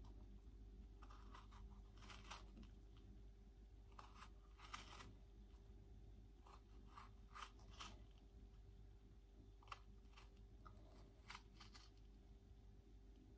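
Faint, soft crunching clicks of a small knife cutting into a fresh strawberry, a dozen or so scattered cuts over a low steady room hum.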